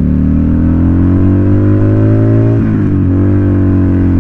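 Buell Lightning's 1203cc V-twin, fitted with aftermarket pipes, accelerating: the engine note climbs steadily, dips briefly at an upshift about two and a half seconds in, then climbs again, at only about a quarter throttle.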